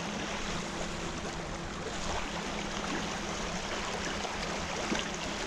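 Fast creek water rushing steadily over rocks, with a faint steady low hum beneath it.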